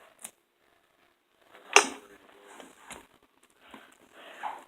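Hard objects being handled while a container is worked open: a small click at the start, one sharp knock just under two seconds in, a lighter knock about a second later, and faint rustling.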